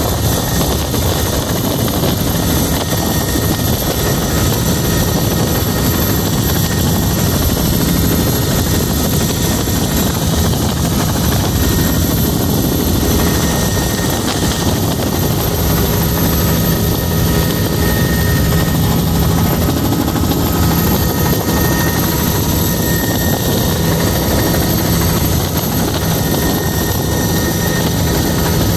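Helicopter engine and rotor running steadily in cruising flight, heard from on board: a constant, unbroken drone with a steady low hum.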